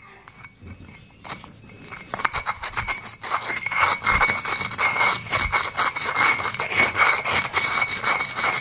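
Stone pestle grinding fresh turmeric in a flat stone mortar (cobek and ulekan): rapid, gritty stone-on-stone scraping and clinking with a faint high ring. It starts after a knock about a second in and runs on steadily from about two seconds in.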